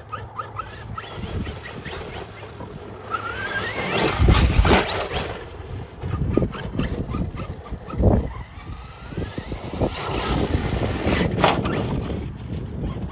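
Losi DBXL-E 2.0 electric RC buggy running on dirt, its brushless motor whining up in pitch as it accelerates. Heavy low thumps come about four and a half and eight seconds in.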